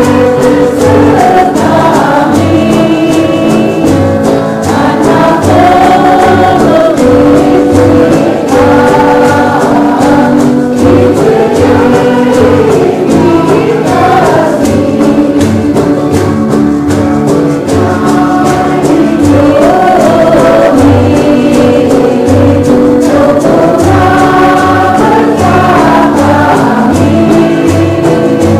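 Background music: a choir singing a Christian song over instrumental accompaniment with a steady bass beat.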